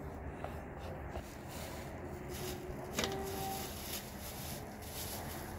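Spoon stirring and scraping in a metal pot of mashed food, with one sharp metallic clink about three seconds in that rings briefly, over a steady outdoor background rush.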